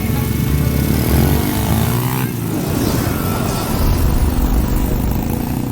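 ATV engine running under way, its pitch shifting about a second or two in, with wind noise over the microphone.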